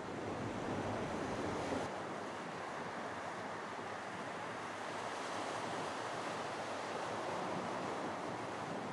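Small Baltic Sea waves breaking and washing up on a sandy beach: a steady rush of surf.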